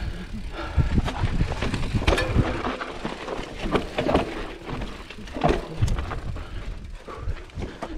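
Giant Reign 29 full-suspension mountain bike rattling over rough, rocky singletrack, with irregular knocks and clatter from the frame and drivetrain over a low rumble. The rumble is heavier in the first few seconds.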